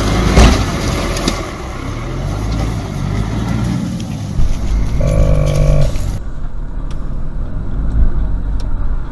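4WD engine running at low revs as the vehicle crawls over a rocky, rutted track, with a knock just after the start and a held horn-like tone lasting under a second about five seconds in. After about six seconds the sound turns duller, as heard from inside a following vehicle.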